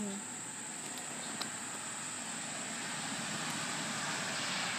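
Steady high-pitched trill of insects, over a broad hiss that grows a little louder toward the end.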